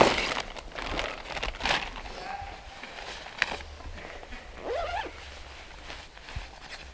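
A clear plastic bag and a down jacket rustling as a man sits down and settles, loudest at the start, then fainter scattered rustles and a single click.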